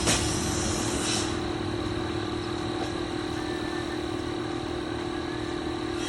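An engine running steadily with an even, unchanging drone, and a couple of brief sharp knocks in the first second or so.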